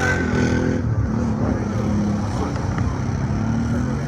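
Quad bike (ATV) engines racing under throttle. The engine pitch rises and falls in several surges.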